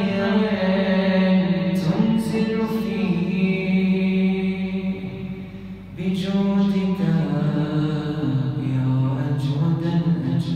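A male reciter chanting an Arabic Ramadan supplication (du'a) in a solo voice, drawing the words out in long, melodic held notes. The voice fades briefly about halfway through, then carries on.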